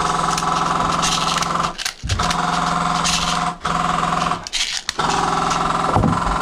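A small electric motor running in three long bursts of one to two seconds each, with a steady hum and a fast rattle.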